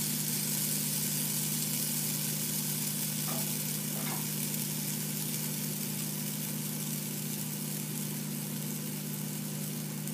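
Pancake batter sizzling as it is poured into a hot, oiled stainless steel frying pan: a steady hiss over a low hum, easing slightly. It is a good sound, meaning the pan is hot enough.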